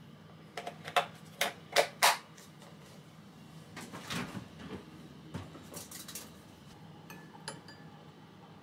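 Kitchenware being handled: a quick run of sharp clicks and knocks about a second in, some shuffling, then near the end a metal spoon lightly clinking against a small glass bowl.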